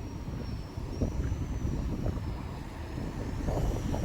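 Strong wind buffeting the microphone in a dense low rumble, over the faint high whine of a model airplane's motor, its pitch wavering up and down.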